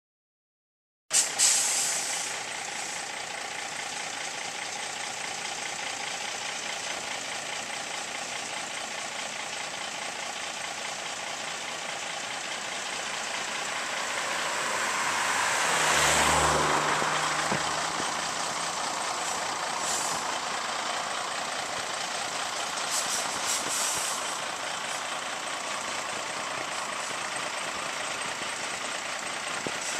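Scammell Explorer recovery truck's engine running steadily as it pulls out towing a Scammell Constructor, with a few short air-brake hisses. A car passes close by about halfway, swelling and fading.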